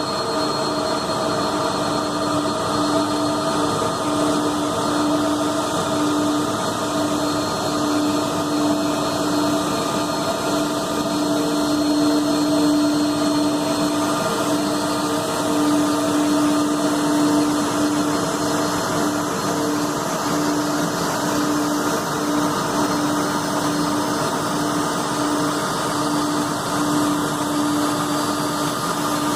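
Airbus A330-200 jet airliner running at low power: a steady, unchanging hum with a high whine over a rushing noise.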